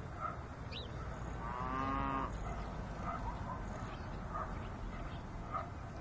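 One long, drawn-out animal call lasting just under a second, about two seconds in, over a steady low rumble, with short faint calls scattered through the rest.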